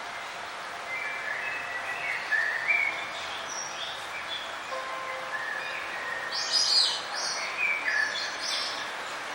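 Several songbirds chirping over a steady background hiss of outdoor ambience, short quick notes from about a second in, with the loudest burst of high chirps a little past the middle.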